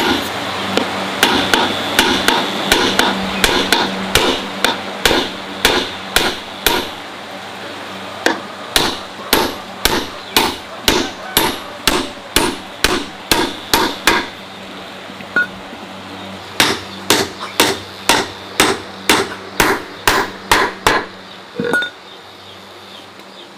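Hammer striking repeatedly, about two blows a second, with a pause of a couple of seconds midway; the blows stop shortly before the end.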